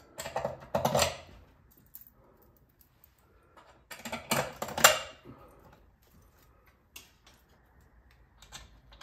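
Metal bolts, clips and a wrench clinking and rattling as the tire's holding clips are bolted back onto a homemade lathe faceplate: two clattering bursts of about a second, near the start and about four seconds in, then a few single clicks.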